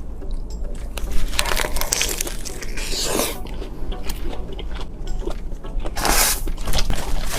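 A person eating close to the microphone: bites and chewing with crunching, the loudest bursts coming about a second, three seconds and six seconds in.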